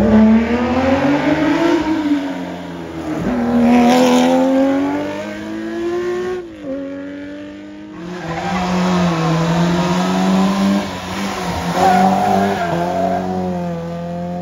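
Competition car engine revving hard, climbing in pitch through the gears with sudden drops at the gear changes about three and six and a half seconds in. After a short lull near the middle it holds high revs again.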